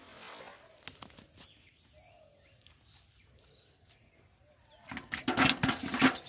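Live fish flapping against the bottom and sides of a metal bucket: a rapid, irregular run of loud slaps and knocks in the last second and a half. Before that, a faint splash as the cast net lands on the pond near the start.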